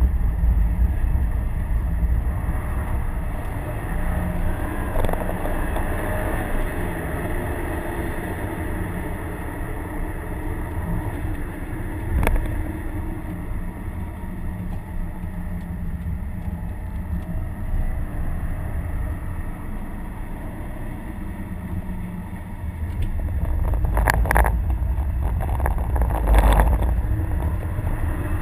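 2011 Subaru WRX's stock turbocharged EJ255 flat-four running under load on track, heard from inside the cabin along with tyre and wet-road noise. There is a single sharp knock about twelve seconds in, and the noise grows louder with several rushing surges near the end.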